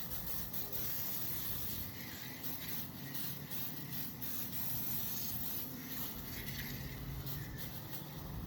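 Aerosol can of foam coil cleaner spraying in one long, steady hiss, the can's nozzle held down throughout.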